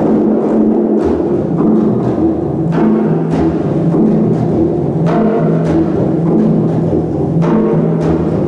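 Live percussion ensemble playing drums: a dense, sustained low drum sound that steps in pitch, with a few sharper accented strikes.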